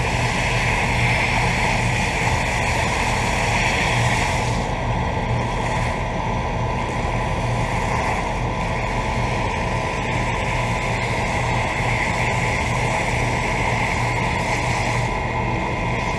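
Two outdoor central air conditioner condensing units, a York and a Guardian, running together: a steady rush of air from the condenser fans over the constant low hum of the compressors.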